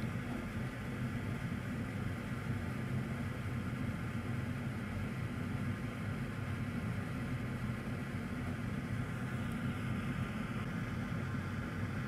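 Steady low hum with a hiss above it, a constant machine-like background noise with no distinct events.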